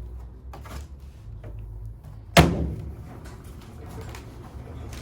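A single loud bang about halfway through, like something being shut, followed by a short ringing decay. Lighter knocks and handling sounds come before and after it, over a low steady hum.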